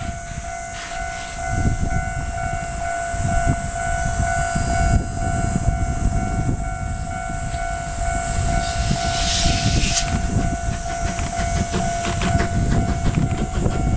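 Train running, a low rumble and rail clatter with a steady high tone throughout. A short burst of hiss comes about nine seconds in.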